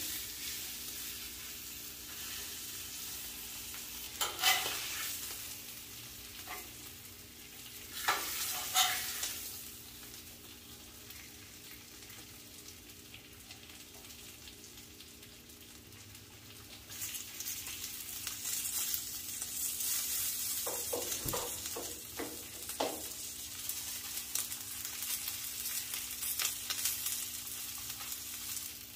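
Ribeye steaks sizzling on a hot Blackstone flat-top griddle as they are seared after warming in the oven (reverse sear), with a few clacks of metal tongs on the steel as they are lifted and turned. The sizzle grows louder and brighter a little over halfway through.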